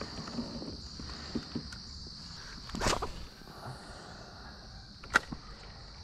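Steady high-pitched drone of insects in the riverside grass. About three seconds in there is a short burst of rushing noise, and just after five seconds a single sharp click.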